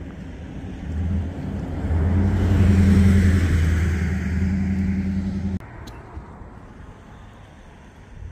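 A motor vehicle's engine running close by, swelling louder over the first few seconds and then cutting off abruptly about five and a half seconds in.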